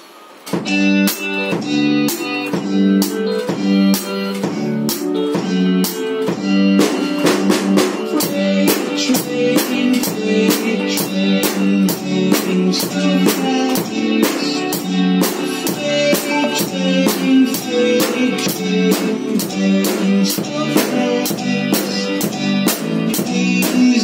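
A drum kit, snare and Meinl HCS cymbals, played with sticks in a steady driving beat that starts about half a second in, over a recorded backing track with guitar and bass.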